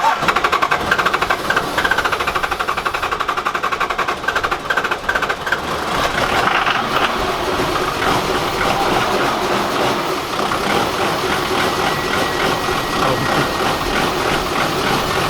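Toyota 2H naturally aspirated straight-six diesel in a 1980 HJ47 Landcruiser being cranked on its first start, with uneven pulsing for about six seconds. It then catches and runs steadily at idle.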